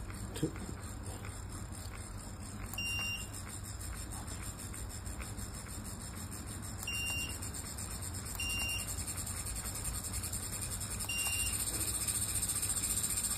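A small DC motor runs under a remote-controlled speed controller, which gives four short, high beeps as the speed is stepped up. The motor's steady whine gets louder near the end as it speeds up.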